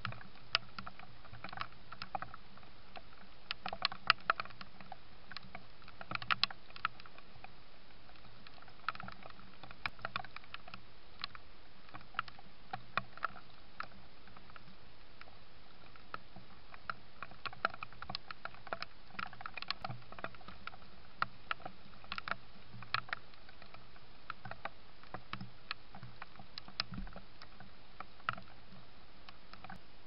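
Red fox chewing food close to the trail camera: irregular sharp clicks and crunches over the camera's steady hiss.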